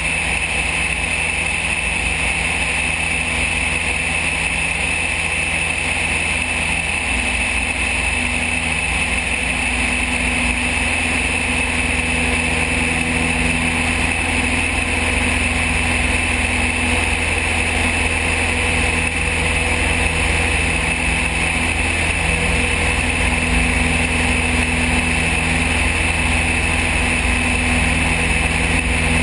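Van's RV-7 light aircraft in cruise flight: its piston engine and propeller drone steadily, heard from outside under the wing with a constant rush of air. The drone's pitch shifts slightly a couple of times.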